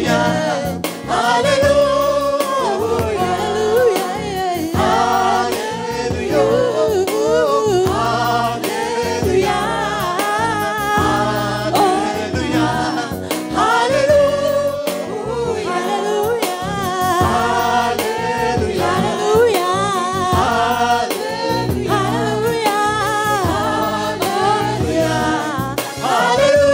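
Gospel worship song: sung voices with wavering, gliding melody lines over a continuous instrumental accompaniment.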